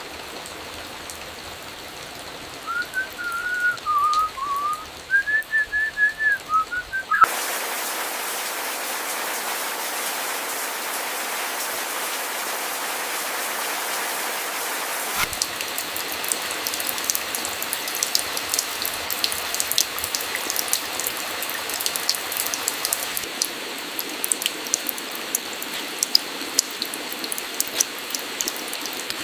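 Rain: a soft hiss with a wavering high whistle over it for a few seconds. About 7 seconds in, it cuts abruptly to steady, heavier rain. About halfway through, it cuts again to rain with many sharp drop ticks, as of drops hitting a hard surface.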